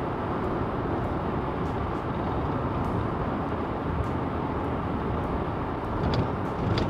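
Steady road and tyre noise with engine hum from a 2017 Ford Flex cruising, heard from inside the car, with a couple of faint light ticks near the end.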